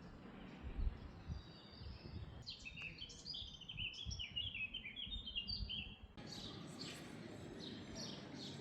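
Songbirds chirping over town ambience. A quick run of chirping notes comes about a third of the way in, and from about two-thirds through the chirping turns busier and higher over a fuller background hum. A few low thumps sound in the first two seconds.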